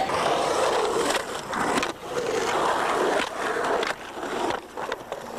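Skateboard wheels rolling on a hard surface in long stretches, broken by short gaps. A few sharp clacks of the board come mostly toward the end, where the rolling is quieter.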